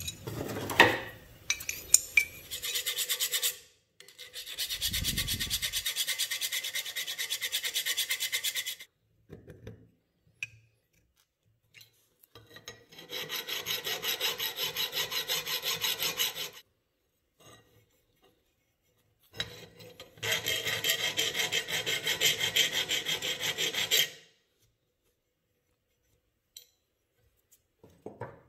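Flat hand file rasping back and forth across a hand plane's metal lever cap, in four runs of quick strokes with pauses between. A couple of metal clinks come first as the part is handled.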